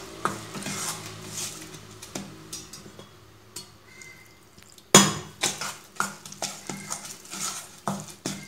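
Metal spoon stirring and scraping dry maida flour in a steel bowl as water is worked in for a thick batter, with scattered clinks of metal on the bowl. A sharp metal clink comes about five seconds in, followed by more quick spoon taps and scrapes.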